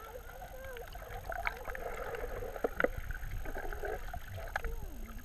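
Underwater sound through a GoPro's waterproof housing: a low, steady wash of moving water with scattered sharp clicks and faint, muffled, wavering voices.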